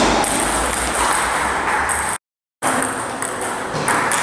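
Table tennis rally: the celluloid ball clicking off bats and table over the hall's background clatter and hubbub. The sound cuts out for about half a second a little after two seconds in.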